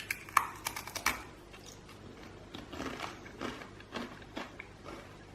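Crunching and chewing on a crisp cheese-flavoured rice cracker (okaki): a quick run of sharp crunches in the first second, then softer, irregular chewing crunches.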